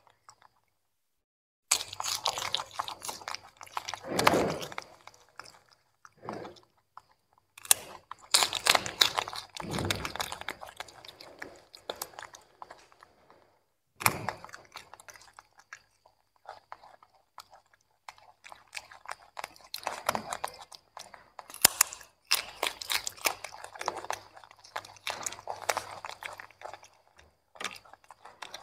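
Young macaque monkeys chewing and crunching pieces of carrot and broccoli close to the microphone, in irregular crackly bursts that start about two seconds in and stop briefly a few times.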